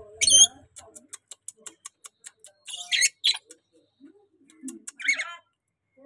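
A caged lorikeet giving short, shrill squawking calls: a loud one at the start, two more about three seconds in, and another about five seconds in, with rapid faint ticks between them.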